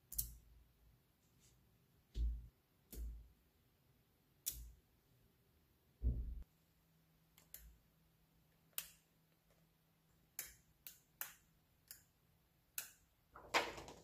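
Small magnet balls snapping and clicking together as slabs of them are pressed into place on a magnet-ball model, about a dozen separate sharp clicks. The first few carry a dull thump, and several clicks come close together near the end.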